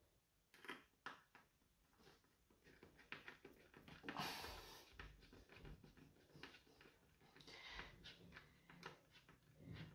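Faint clicks and scraping of a small screwdriver working at the metal back chassis of an LED TV, with a brief louder hiss about four seconds in.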